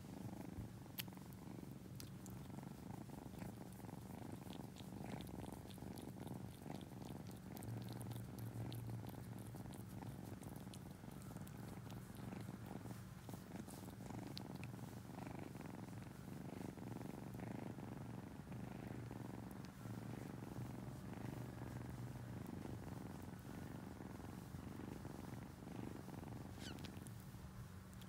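Brown tabby kitten purring steadily while being stroked on the belly.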